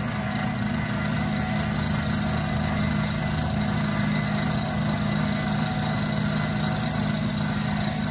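Vertical milling machine running, its end mill climb-milling across the face of an aluminium block in the vise: a steady motor hum with a faint, steady high whine.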